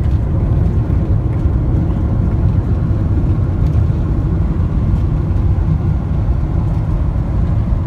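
Steady low rumble of road and wind noise heard inside the cabin of a moving vehicle.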